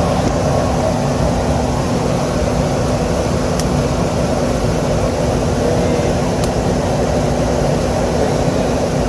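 Trane rooftop HVAC unit's three-phase blower motor and fan running steadily on high speed: a dense, even air-and-motor noise with a constant low hum, and a couple of faint ticks.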